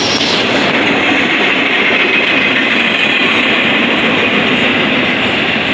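Double-stack intermodal freight train's well cars rolling past close by, a steady, even noise of steel wheels running on the rails.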